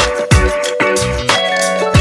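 Background music with a steady beat, plucked guitar-like notes over regular drum hits.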